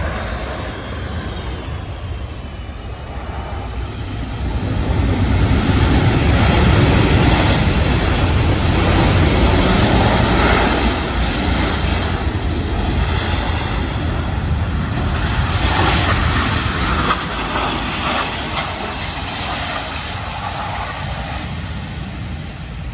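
Jet engines of a C-17 Globemaster III as it rolls past on the runway: a loud, deep rushing that swells to its loudest in the middle and then slowly fades as it moves away, with a faint falling whine in the first few seconds.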